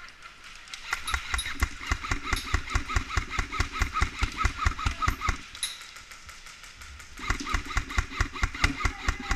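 M4-style airsoft rifle firing full-auto: a fast, steady rattle of shots, about ten a second. Two long bursts, the first about four seconds long, the second about two seconds near the end.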